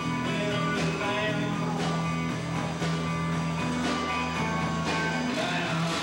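A rock band playing live: electric guitars over a steady drum beat.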